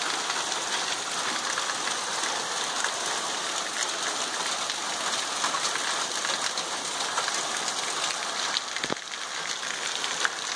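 Heavy rain pouring onto standing water and ground, a steady hiss thick with the patter of drops.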